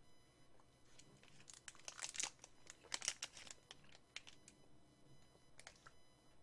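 Faint crinkling and rustling of a plastic snack wrapper being handled, in short bursts that are heaviest about two to three seconds in.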